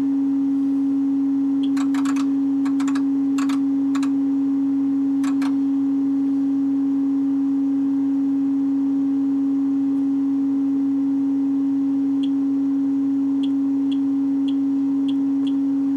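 Steady sine-wave test tone from an audio generator, a single low-mid pitch held at constant level, driving a valve amplifier under test. A few sharp clicks come about two to five seconds in, and light ticks sound near the end.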